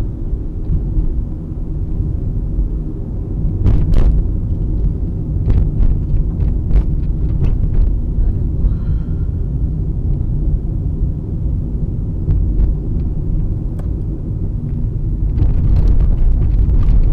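A car driving at about 30 km/h, heard from inside the cabin: a steady low road and engine rumble, with scattered knocks and jolts as it runs over rough, patched road.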